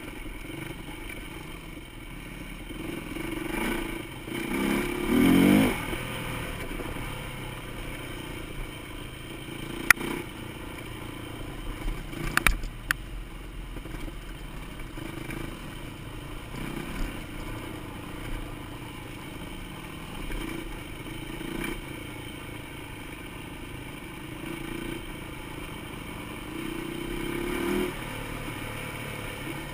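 Enduro dirt bike engine heard from the rider's seat, running on and off the throttle along a trail. It revs up hard about five seconds in and again near the end. A few sharp knocks sound partway through.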